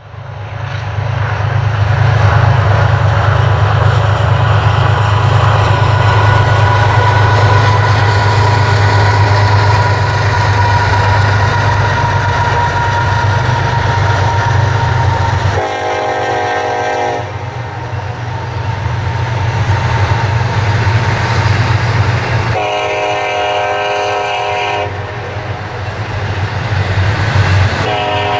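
Union Pacific double-stack intermodal freight train rolling past, its container cars making a steady low rumble. A train horn sounds three times: a short blast about halfway through, a longer one about two-thirds of the way in, and a third near the end.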